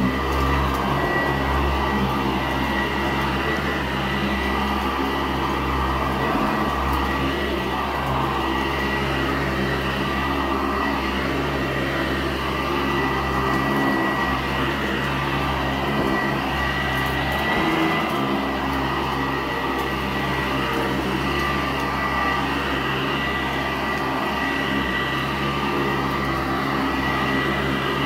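Custom-built Sanitaire SC886 commercial upright vacuum with an 8-amp Sanitaire motor running steadily while pushed across carpet: a constant motor hum with a thin high whine over it.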